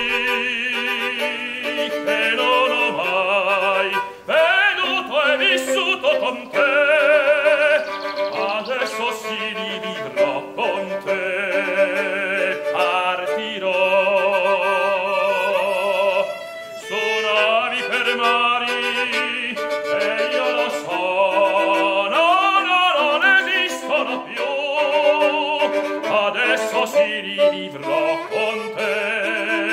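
Male opera singer performing a classical aria with a wide vibrato, held notes broken by brief breaths.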